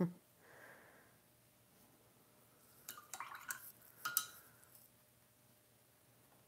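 A paintbrush being rinsed in a glass water jar: a soft swish, then two short bursts of clinks and splashes about three and four seconds in, the second with a brief glassy ring.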